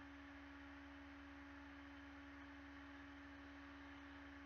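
Near silence: room tone with a faint steady electrical hum holding one unchanging tone.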